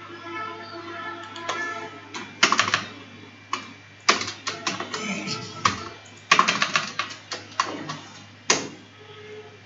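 Computer keyboard keys being typed in quick bursts of sharp clicks, starting about two seconds in, as HTML code is entered. Faint music plays under the first couple of seconds.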